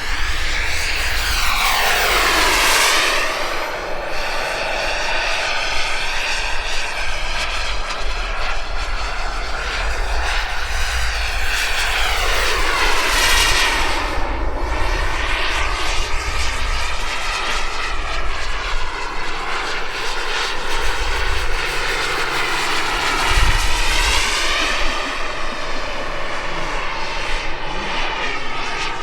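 Turbine-powered RC jet's small gas-turbine engine whining as the jet makes fast passes. Its pitch sweeps down sharply as it goes by, twice, and climbs again near the end.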